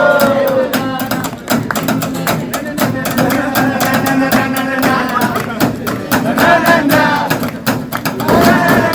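Live concert music: a melody line over a busy, fast beat.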